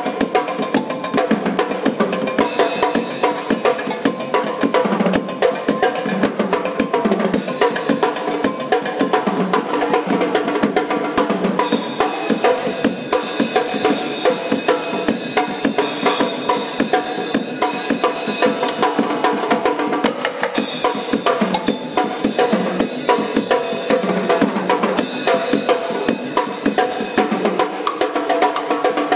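Drum kit mounted on a bicycle, played in a fast, busy beat of snare hits, rimshots and kick drum, with a cymbal wash through the middle stretch.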